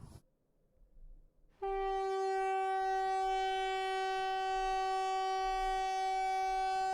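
Near silence, then about a second and a half in an emergency alert tone switches on: one steady note with many overtones, held without a break.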